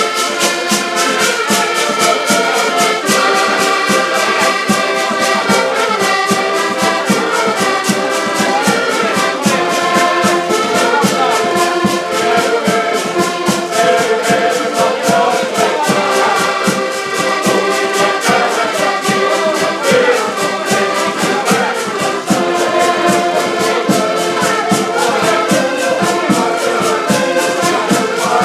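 An ensemble of about ten diatonic button accordions playing a Portuguese folk tune together in sustained chords, with a drum keeping a steady, even beat.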